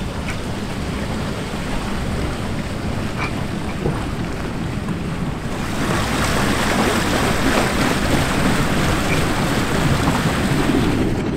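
Steel carriage of a canal inclined-plane boat lift rolling on its rails into the water: a steady low rumble with a few faint clinks. About six seconds in, louder rushing and splashing joins as the wheels plough through the canal water.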